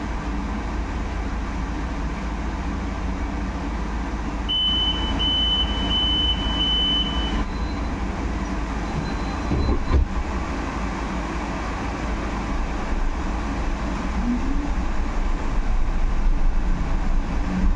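Cabin ride noise of a Solaris Urbino 18 IV electric articulated bus on the move: a steady low rumble from the running gear and road. About four and a half seconds in, a high electronic beep sounds five times in quick succession. A single knock follows about ten seconds in.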